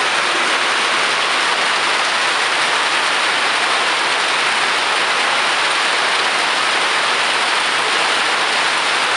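Rain pouring steadily, a dense even hiss that does not let up.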